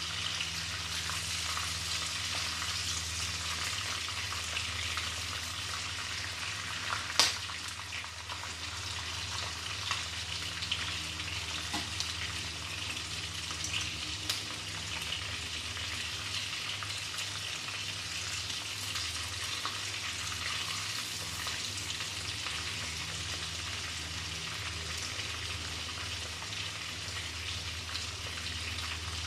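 Prawns deep-frying in hot oil in a wok, a steady crackling sizzle, with a low steady hum underneath. A sharp knock about seven seconds in and a few lighter taps a few seconds later.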